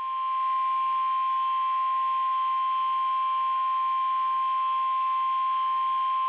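NOAA Weather Radio's 1050 Hz warning alarm tone: one loud, steady single-pitched tone over faint radio hiss, the signal that a new warning is about to be broadcast.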